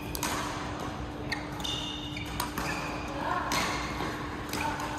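Badminton rally in a large, echoing sports hall: sharp racket-on-shuttlecock hits, with shoes squeaking briefly on the court floor and voices from around the hall.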